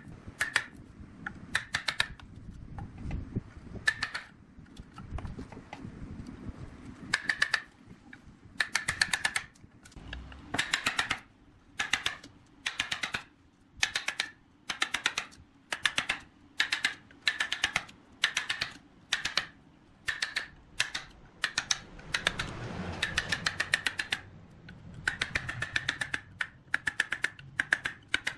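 Hand chisel paring chips out of the mouth of an areca-wood vase: short bursts of rapid sharp clicks, about one burst a second.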